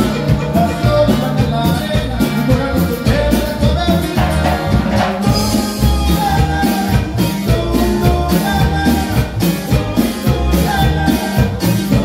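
Loud dance music with drums and bass keeping a steady beat.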